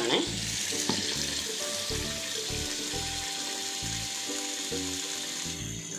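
Tap water pouring into a steel pot of split dal, a steady splashing hiss that gets quieter near the end.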